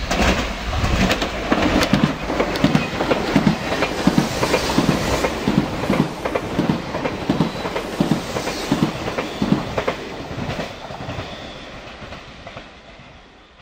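Renfe Media Distancia electric multiple unit passing close at speed: running noise with a regular clickety-clack of its wheels on the rails, fading away over the last few seconds.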